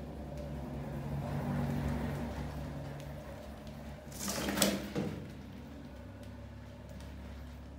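A cardboard tipping lid on a plastic bucket trap swings under a rat's weight, with a short scraping clatter about four and a half seconds in as the rat drops into the bucket. A steady low hum runs underneath.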